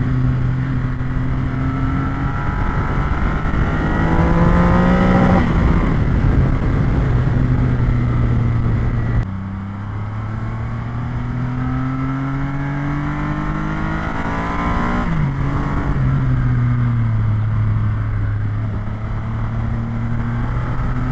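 Triumph Rocket 3R's 2.5-litre inline three-cylinder engine pulling hard at speed. Its pitch climbs, falls sharply about nine seconds in, climbs again, falls once more about fifteen seconds in, then holds steady.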